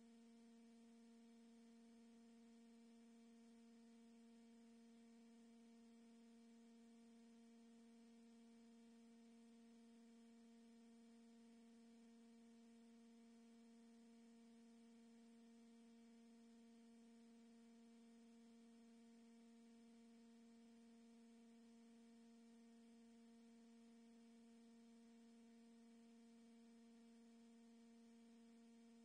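Near silence, with a faint steady electrical-sounding hum of one low pitch and its overtones.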